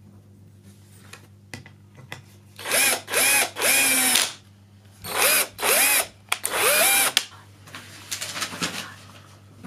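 Cordless drill-driver run in short trigger pulses to drive screws into a pine bed frame: six bursts in two groups of three, the motor whirring up and dropping back each time.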